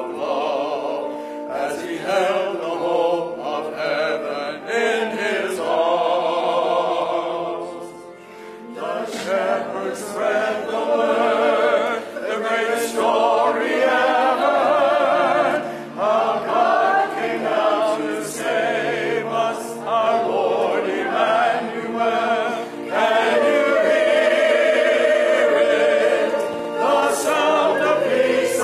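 Church choir singing in parts, many voices together with vibrato, with a brief pause for breath about eight seconds in.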